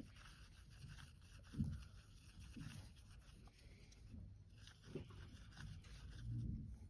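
Faint, scattered soft taps and rubbing of a paintbrush mixing paint on a palette, over quiet room tone.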